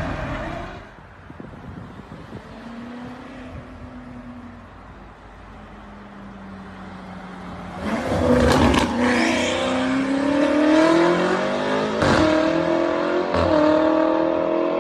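BMW M5 F90's twin-turbo V8 running low and steady, then revving hard about eight seconds in and accelerating, its pitch climbing and dropping at gear changes about twelve seconds in and again shortly after. Sharp exhaust cracks come with the rev and the shifts.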